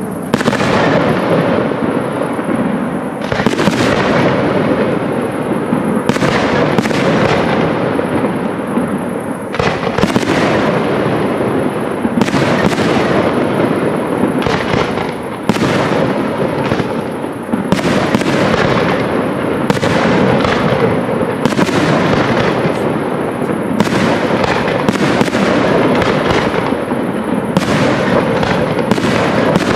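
Aerial firework shells bursting one after another in a dense barrage of loud bangs, the echoes of each running into the next.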